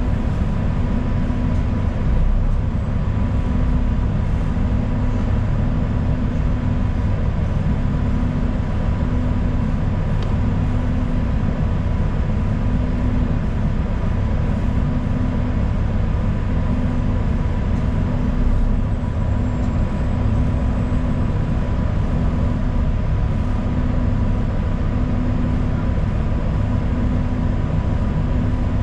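Steady low rumble of a transit bus's engine and running gear heard from inside the passenger cabin, with a faint constant high tone above it.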